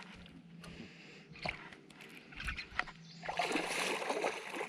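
Water splashing and sloshing as a hooked bass thrashes at the surface beside the boat, growing louder about three seconds in, after a few light knocks.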